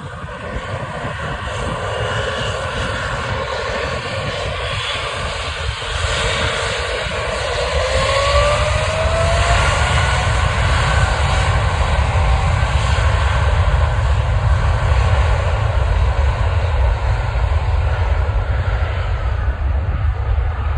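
Jet airliner's engines running up for take-off: a steady roar with a rising whine about a third of the way in as the engines spool up, then a deep rumble that grows louder and holds.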